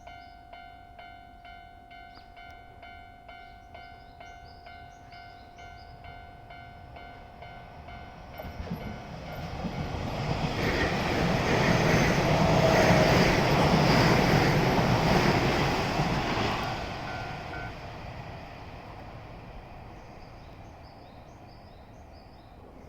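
Level-crossing warning bell ringing steadily while a Keio Inokashira Line 1000-series electric train passes through the crossing. The train's noise swells from about eight seconds in, is loudest around the middle and fades away; the bell stops soon after the train has gone.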